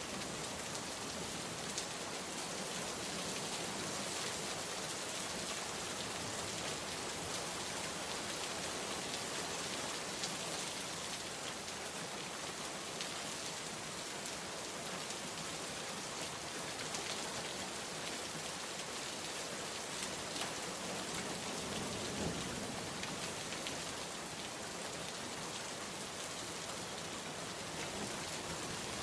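Steady rain falling, an even hiss with scattered drop patter and a brief low rumble about twenty-two seconds in.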